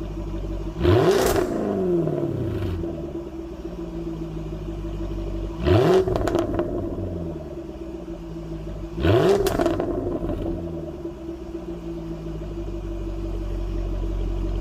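Jaguar F-Type R's supercharged 5.0-litre V8 on its stock exhaust, idling and blipped three times, each rev rising quickly and falling back to idle. The engine is only lightly warmed.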